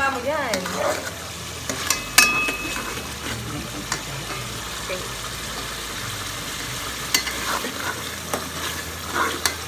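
Spaghetti sauce with ground meat frying in an aluminium pot, stirred and scraped with a spatula. The spatula clinks against the pot once about two seconds in, leaving a short ring.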